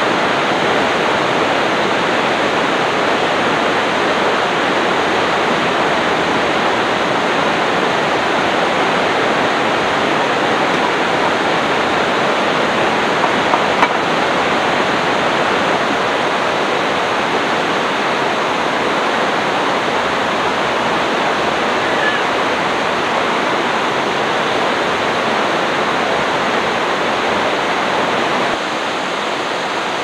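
Steady, loud rush of a river flowing toward a waterfall, even and unbroken, dropping slightly in level near the end.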